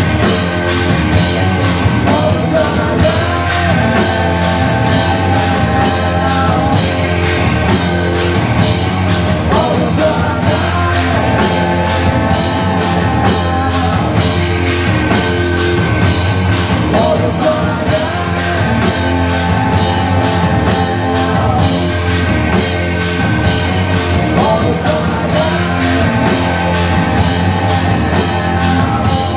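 Live rock band playing: electric guitars, bass guitar and a drum kit keeping a steady beat, with a singer's voice over the band.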